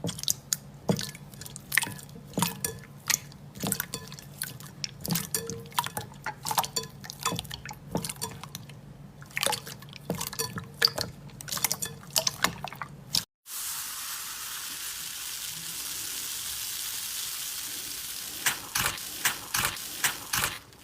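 Slime being squished and poked by hand: a quick run of wet clicks and pops. About two thirds of the way in it cuts to a steady high hiss, with a few more clicks near the end.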